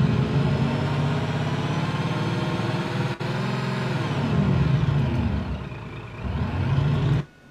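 Recorded diesel truck engine sound sample from the ESS-One RC engine sound system's library, played back on a computer. The engine runs and revs, rising and falling in pitch, with a brief break about three seconds in, and cuts off suddenly near the end.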